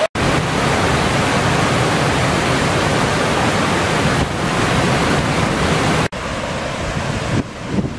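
Mountain stream cascading over boulders: a loud, steady rush of white water. It cuts out for an instant right at the start and again about six seconds in, then continues a little quieter.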